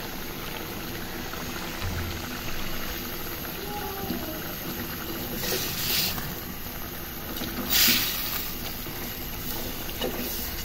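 Fish curry masala simmering in an aluminium pot on a gas stove: a steady hiss and bubbling. Twice partway through, a plastic spatula scrapes briefly against the pot as the fish pieces are turned.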